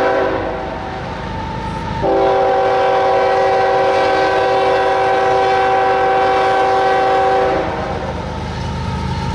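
CSX diesel locomotive's multi-note air horn. One blast cuts off just after the start, and a long steady blast sounds from about two seconds in until shortly before the end. Underneath is the low running of the locomotives' diesel engines as the train comes on, and the engines grow louder near the end as the lead unit draws close.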